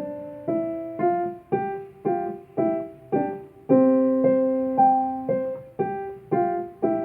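Solo piano playing a slow, gentle melody: a note or chord struck about twice a second, each one ringing and fading, with one chord held longer about halfway through.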